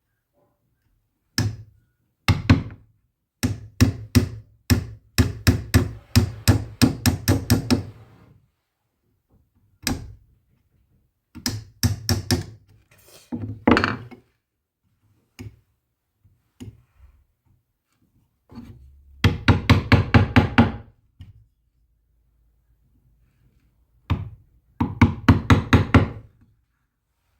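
Hammering on wood: runs of sharp knocks, about four or five a second, broken by short pauses, with the longest runs about four seconds in and again near twenty seconds in.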